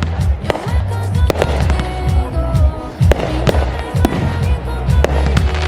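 Fireworks display: many sharp bangs and crackles from bursting shells, in quick succession, over music with a heavy bass line.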